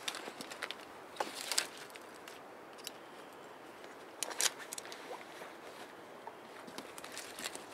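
Spruce branches rustling and brushing as a pole is dragged through them, with irregular twig snaps and knocks, the sharpest cluster about halfway through.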